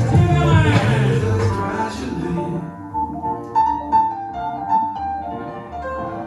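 Music: a full band with heavy bass fades out over the first couple of seconds, leaving sparse keyboard notes.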